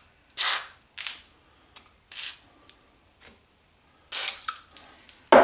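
Tools and metal parts being handled and set down on a workbench: a few short rubbing and clattering sounds, with a sharp knock near the end.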